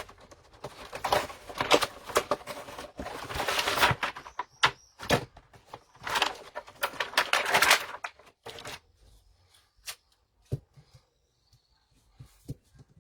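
Packaging being handled and opened: rustling and crinkling in uneven bursts, followed by scattered light clicks and taps.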